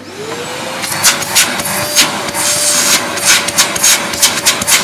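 Goblin GCV303B bagless cylinder vacuum cleaner switched on: its motor whine rises in pitch as it spins up, then runs steadily with a rushing of air. From about a second in, a run of sharp pops and whooshes as the hose end is covered and uncovered to test the suction.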